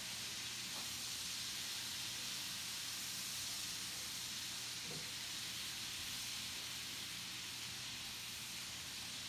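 Sliced baby portobello mushrooms sizzling steadily in oil and butter in a skillet as they sauté down.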